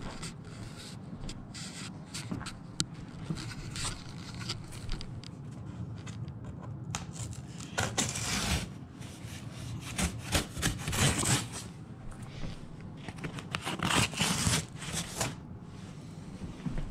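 Hands handling a large cardboard shipping box, with bursts of cardboard scraping and rubbing, loudest about halfway through and again near the end.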